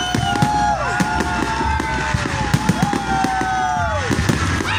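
Fireworks display with several whistling shells. Each gives a steady high whistle of a second or two that drops away in pitch as it dies, and they overlap one another over a dense crackle of pops and bangs.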